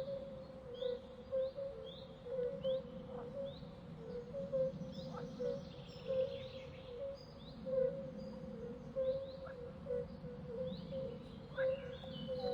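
Small birds chirping: short repeated calls, about two a second, over a low pulsing note and a steady low rumble.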